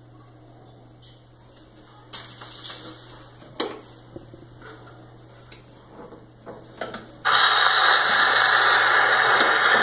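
Edison Diamond Disc phonograph being started by hand: a brief rustle and several sharp mechanical clicks at the turntable and reproducer, then about seven seconds in a sudden loud, steady hiss of disc surface noise as the record begins to play.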